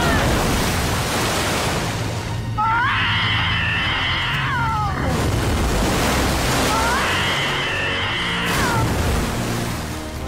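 A large creature's roar, heard twice, each call about two seconds long, rising, holding, then falling away. Background music and a steady rushing noise play underneath.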